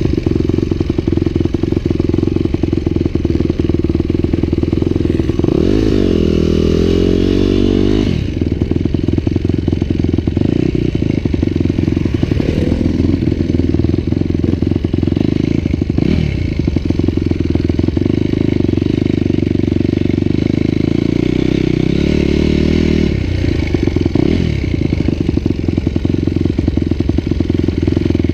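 Adventure motorcycle engine running under way, its note dipping and climbing again about six seconds in and again about twenty-two seconds in as the throttle and gears change.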